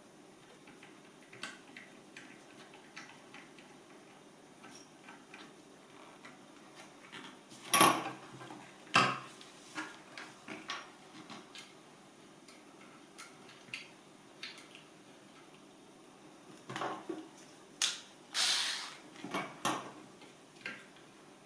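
Scattered clicks and knocks of screws and small metal parts being handled and fitted back into a Mazzer Mini-e grinder's casing during reassembly, with louder knocks about eight and nine seconds in and a cluster near the end.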